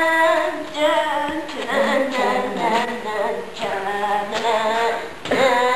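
A high voice singing unaccompanied, held notes in short phrases with brief breaks between them.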